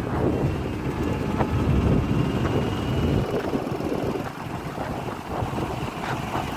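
Wind buffeting the microphone over the rumble of road and traffic noise from a vehicle driving through city traffic.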